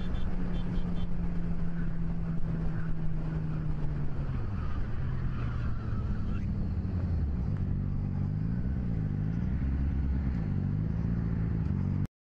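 Motorcycle engine running under way, heard from the rider's own bike: a steady note that drops in pitch about four seconds in as the rider backs off, then rises and falls several times with the throttle. It cuts off abruptly near the end.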